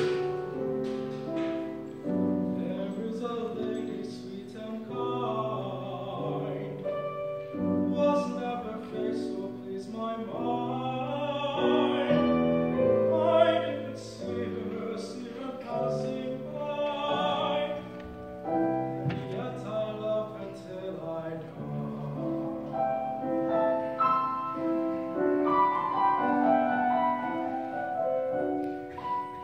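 A male classical singer sings an art song in operatic style, accompanied by a grand piano.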